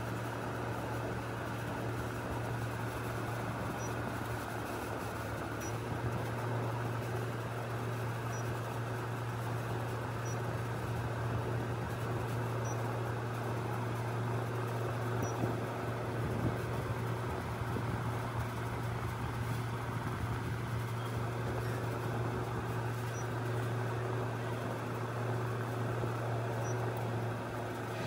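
Marq 1.5-ton window air conditioner running: a steady low hum with the even rush of its fan blowing air.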